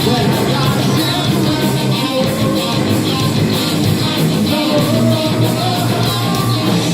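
Live heavy metal band playing loud: distorted electric guitars and bass over a steady drum beat, with a sung vocal line.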